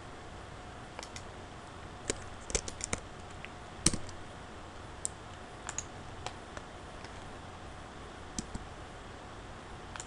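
Irregular computer keyboard key presses and mouse clicks, a few scattered and a quick cluster about two to three seconds in, the loudest just before four seconds, over a faint steady hiss and hum.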